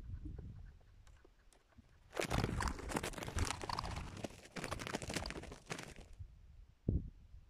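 Close, dense crunching and crackling rustle, like dry material being crushed or handled, lasting about four seconds from about two seconds in, with one dull thump near the end.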